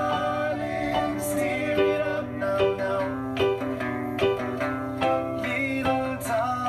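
Reggae music: keyboard chords played along with a band backing track, with a steady bass line and plucked, guitar-like notes.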